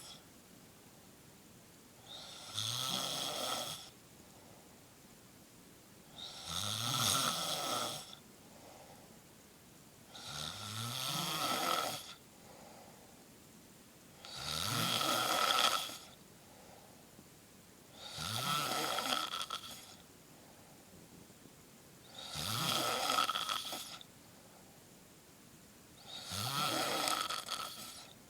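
A person snoring: seven snores about four seconds apart, each lasting a second or two and rising in pitch, with quiet gaps between.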